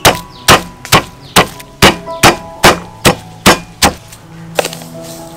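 Stone pestle pounding chilies and garlic in a stone mortar: about ten evenly spaced strikes, a little over two a second, stopping about four seconds in.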